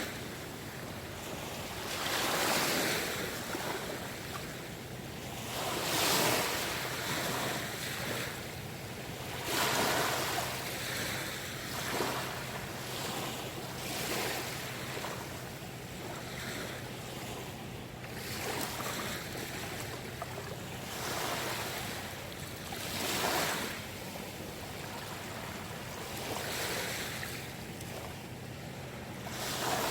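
Sea waves washing in, each wash swelling and fading every few seconds, over a faint steady low hum.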